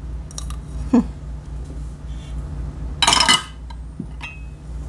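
Light kitchen clatter of a spoon against bowls: small clicks, a louder scrape about three seconds in, and a short ringing clink near the end.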